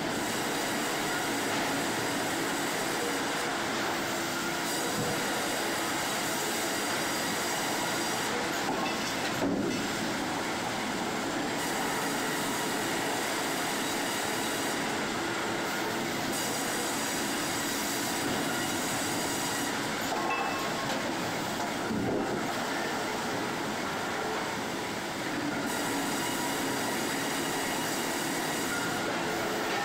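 Sawmill machinery running: a steady mechanical din of conveyors and saws with a high metallic whine throughout, and a couple of brief knocks, about ten seconds in and again after twenty seconds.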